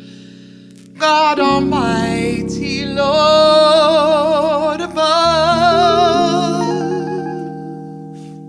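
Jazz piano chords with a female voice singing a wordless line with vibrato over them. The voice and a fuller chord come in about a second in, and the sound fades toward the end.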